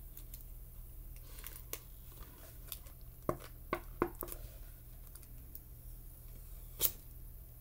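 Hard clear-plastic tube packaging handled and twisted in the hands: scattered clicks and taps of plastic as its ends are gripped and worked at in an attempt to open it, with a sharper click near the end.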